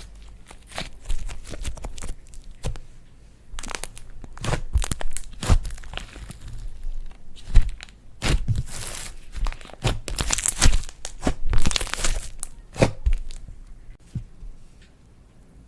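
Slime being squeezed, stretched and pulled apart by hand, with irregular crackling, popping clicks and tearing sounds that die down near the end.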